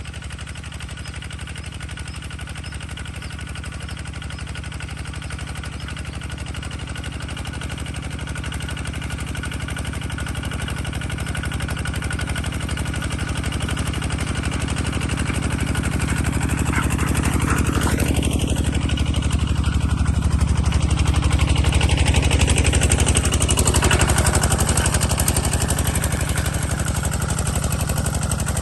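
A motor vehicle's engine running steadily, growing louder over the first two-thirds and easing a little near the end.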